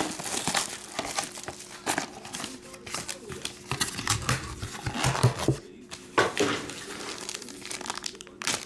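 Plastic wrapping crinkling and tearing in the hands, in many irregular crackles: cellophane shrink wrap coming off a trading-card box, then a thin black plastic bag being handled.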